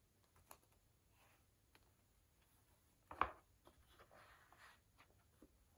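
Quiet handling of a tablet folio case: one sharp knock about three seconds in as the case is set down flat on a tiled tabletop, then a brief soft rustle of hands on the case.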